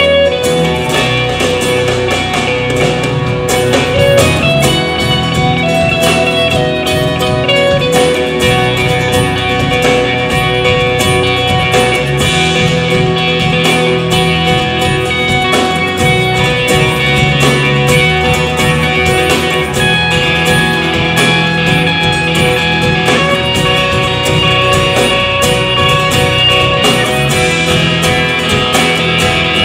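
Live band playing an instrumental passage with no singing, an electric guitar carrying the lead melody over keyboard, fiddle and acoustic guitar.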